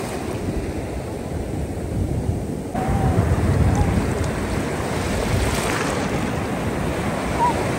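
Ocean surf washing up the beach, a steady rush of water with wind buffeting the microphone. It swells louder about three seconds in as a wave comes in.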